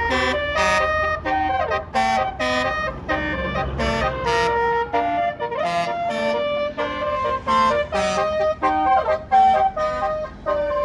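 Basuri telolet multi-tone bus air horn playing a quick melody, one pitched note after another changing every third to half second. A low bus-engine rumble sits under the first half.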